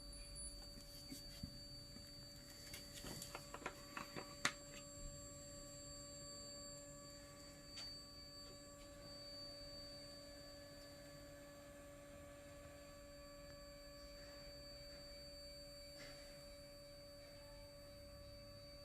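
Near silence: a faint steady electrical hum of several held tones, with a few light clicks in the first few seconds, one sharper than the rest.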